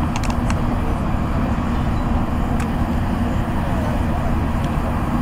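Jet airliner's engines at takeoff power during its roll and lift-off, a steady deep rumble. A few sharp clicks in the first half-second.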